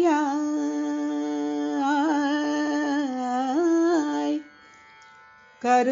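A woman sings a Carnatic devotional phrase in raga Rageshri, holding the word "oliyaai" on one pitch with gliding, wavering ornaments. The voice stops about four and a half seconds in, and the next phrase begins near the end.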